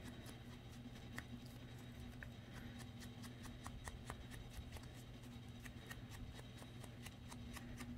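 Faint, irregular taps and light brushing of a foam ink blending tool dabbed along the edges of a piece of paper, over a low steady hum.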